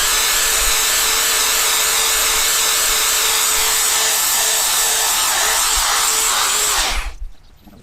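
Electric drill running steadily with a polishing pad, buffing cerium oxide compound onto a motorcycle windscreen, then switched off about seven seconds in.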